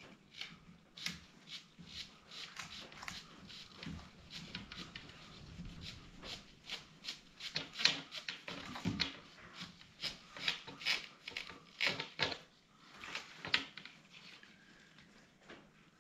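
Handling noise from a caravan blind's plastic rail and cover being slid and fitted together by hand: irregular clicks, rubs and scrapes of plastic and aluminium, a few of them louder.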